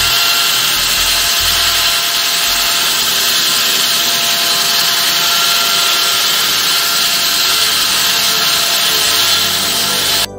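Hilti wall saw's diamond blade cutting wet concrete: a steady, loud hiss with a faint whine. It cuts off suddenly near the end.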